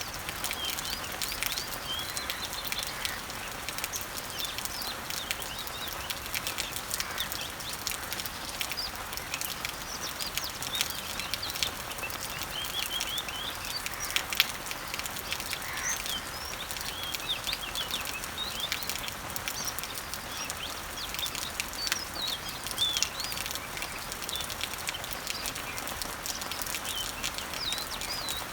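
Rain pattering steadily on garden leaves, with many small birds chirping in short, quick calls all through.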